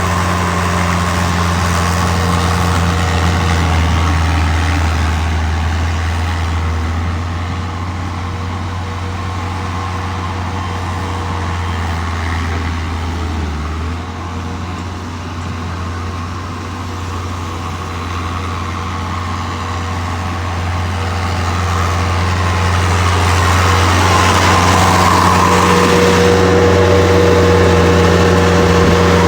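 Diesel engine of a piece of construction equipment running steadily. It eases off through the middle and grows louder again about three-quarters of the way in.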